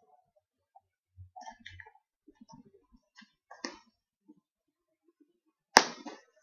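Packaging being cut and pulled open by hand with a knife: scattered small clicks and rustles, then one sharp, loud snap near the end.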